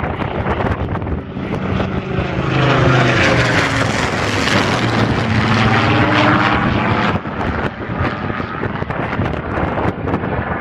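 Supermarine Spitfire and Hawker Hurricane piston-engined fighters flying a low pass. The engine note swells to its loudest about three to seven seconds in, then drops in pitch and fades as they go by.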